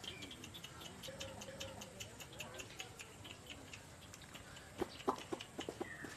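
Faint farmyard sounds: chickens clucking among many short, high bird chirps.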